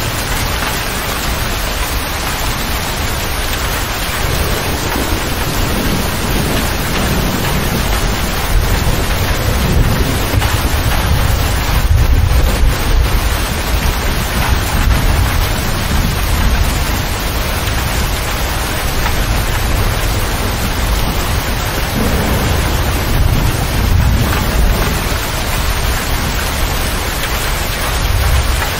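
Heavy rain drumming steadily on a motor grader's cab roof and windows, heard from inside the cab. Low rumbles swell and fade several times, loudest about twelve seconds in.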